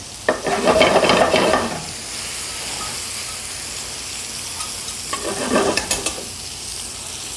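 Shiitake mushrooms and sand dabs sizzling in hot pans while a carving fork stirs the mushrooms in a stainless steel sauté pan. The stirring is louder in the first couple of seconds and again about five to six seconds in, with clinks of metal on the pan.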